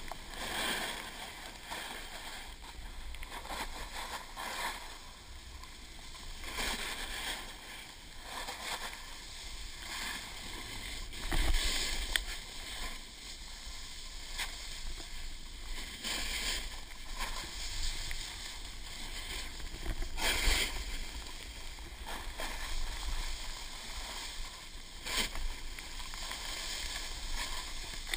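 A snowboard carving over snow, hissing and scraping in a series of turns every couple of seconds, with wind rumbling on the GoPro Hero2's microphone. Two turns, about a third and two thirds of the way in, are louder scrapes.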